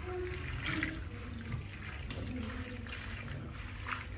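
Chopped spinach being washed by hand in a bowl of water in a steel sink: water sloshing and splashing as the leaves are swished and squeezed, with a few sharper splashes, one near the start and one near the end.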